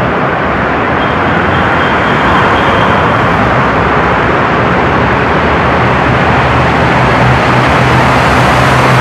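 Road traffic in a tunnel: a steady, dense rush of tyres and engines. A low engine hum grows louder in the second half.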